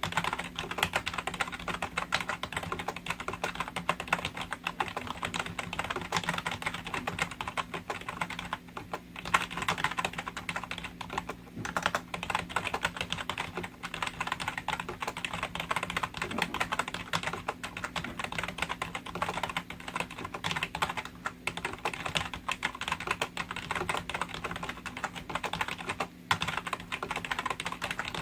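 Logitech G213 membrane (rubber-dome) keyboard being typed on fast and continuously, a dense stream of soft key clicks broken by a few brief pauses.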